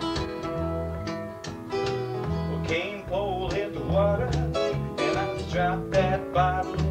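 Live country band playing an instrumental passage: acoustic guitars and a bass guitar, with a lead melody of bending, wavering notes about three to four seconds in.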